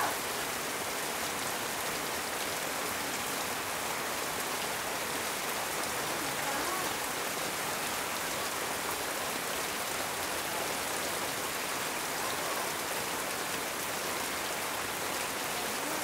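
Heavy rain falling steadily on corrugated metal roofing, an even hiss of drops.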